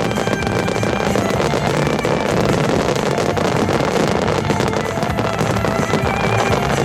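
Wide starmine fireworks barrage: a dense, unbroken run of shell bursts and crackling. Music plays underneath.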